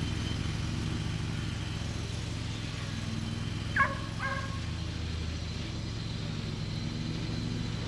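A steady low mechanical hum like an idling engine, with two short barks from a dog about four seconds in.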